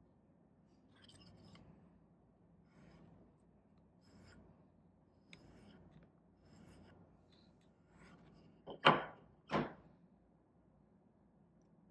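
Steel broadhead blade scraped over a diamond sharpening stone: light strokes about every second and a half, then two louder, sharper strokes close together near the end.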